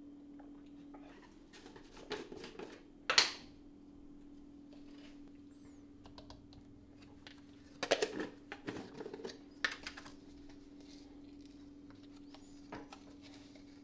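Plastic supplement tubs being handled on a kitchen counter: lids twisted off and set down, with scattered clicks and knocks, a sharp clack about three seconds in and a cluster of knocks around eight seconds. A steady low hum runs underneath.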